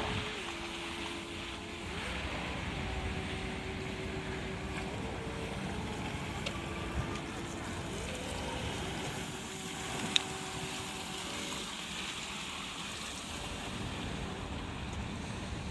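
Steady city rumble of distant vehicle engines and wind, with engine drones holding and shifting pitch. A single sharp tick about ten seconds in.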